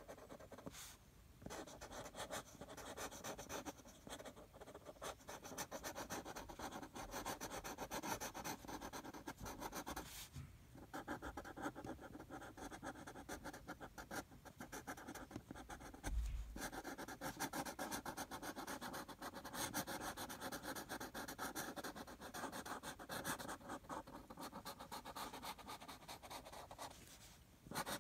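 Felt-tip marker scribbling on card in fast back-and-forth colouring strokes, stopping briefly a few times as the pen is lifted. A soft low bump sounds just past halfway.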